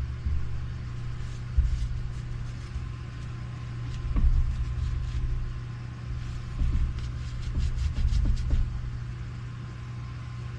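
A steady low electrical hum with irregular low rumbling, and a run of light clicks around the middle.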